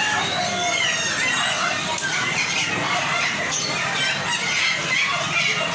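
Many caged birds chirping over one another, with chickens clucking and squawking, in a steady dense chorus.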